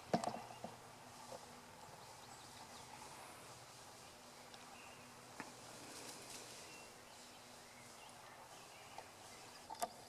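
Quiet spring woodland ambience: a faint steady background hiss with a few soft clicks, the sharpest just after the start and another near the end.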